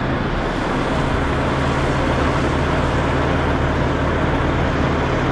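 Large wheel loader's diesel engine running steadily: a constant low hum under a broad even noise.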